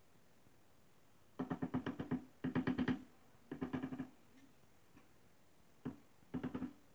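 Ceramic floor tile being tapped down into its mortar bed with the end of a wooden handle: four quick runs of rapid knocks with a short single knock between the last two, bedding and levelling the tile.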